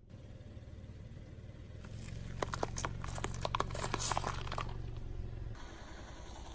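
Car rolling over and crushing crunchy objects: a cluster of sharp cracks and crunches over a steady low engine hum, which cuts off near the end.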